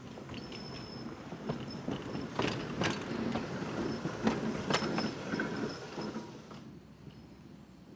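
Electric interurban car No. 20 rolling past at low speed: a rumble of wheels on rail that builds and then fades, with the wheels clicking over rail joints in pairs, and a faint high steady whine.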